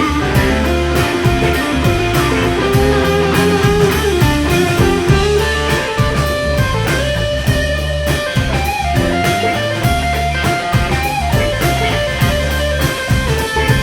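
Live rock-blues band playing an instrumental jam: electric guitar lead with held, bent notes over bass and a steady drum beat.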